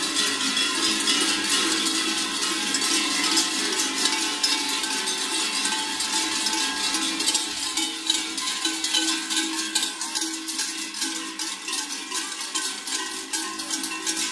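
Large cowbells on the belts of a group of kurenti, the sheepskin-clad Slovenian carnival figures, clanging without pause as they walk and hop. It is a dense, jangling clatter over several steady ringing tones.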